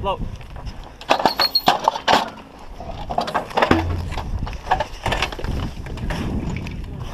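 Irregular knocks, clanks and rustling from soldiers moving about and handling gear at an M777 howitzer position, with the loudest knocks about one and two seconds in.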